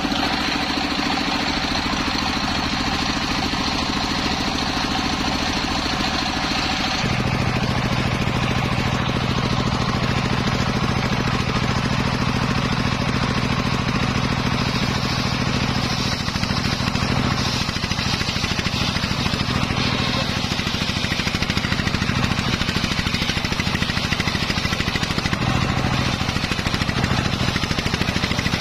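Stationary engine running steadily, belt-driving a large homemade circular saw that is ripping lengthwise through a teak log. The sound changes abruptly about seven seconds in.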